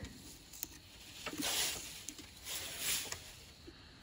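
A small knife scraping and shaving pumpkin rind in a couple of short strokes, with a few small clicks of the blade cutting through.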